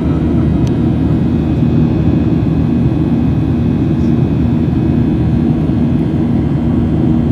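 Steady rumble of a Boeing 737's jet engines during the climb after takeoff, heard inside the cabin over the wing. It is heaviest in the low end, with faint steady tones above, and does not change.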